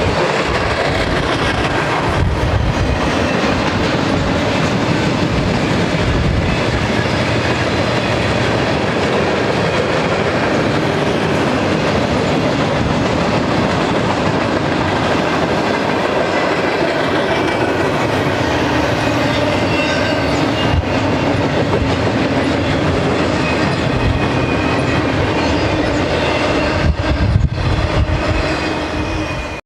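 Long intermodal freight train of trailer flatcars and double-stack container cars rolling past close by: steady noise of steel wheels running over the rails.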